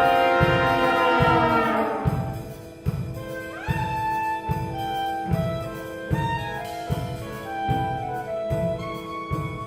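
Mixed chamber ensemble playing contemporary concert music: a loud sustained chord slides downward over the first two seconds. Then a line swoops upward into short melodic notes over a steady low beat of about three pulses every two seconds.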